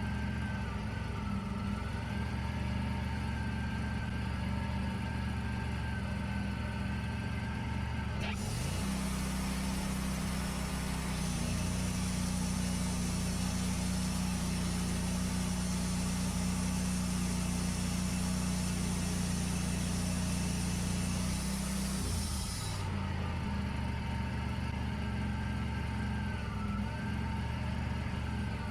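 Wood-Mizer LT40 Wide band sawmill running steadily. About eight seconds in, the engine note changes and a hiss fills in as the mill works under load for roughly fourteen seconds, then it drops back to lighter running with a faint wavering whine.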